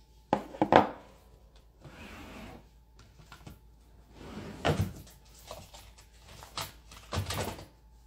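Several knocks and clatters of small gel polish bottles and jars being put down and picked up on a tabletop, the loudest about half a second in, with a brief rustle between.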